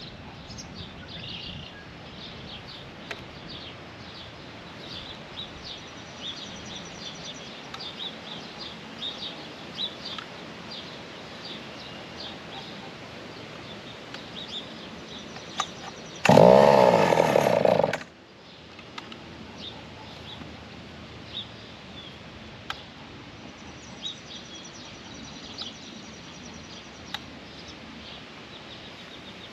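Birds chirping over steady outdoor background noise. About 16 seconds in, a chainsaw running on an alcohol-nitromethane mix fires and runs for under two seconds, then cuts out abruptly, dying after firing during starting.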